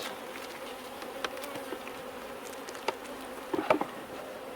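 Honey bees buzzing steadily, the few left in a hive ruined by wasps and wax moth. A few short, sharp clicks and knocks come through it, the loudest a little before the end.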